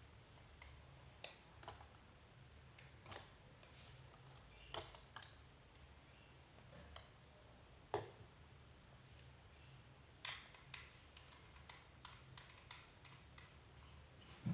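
Sparse small clicks and taps over a low steady hum, as buttons are pressed and radio equipment is handled on the bench, with one sharper tap about eight seconds in.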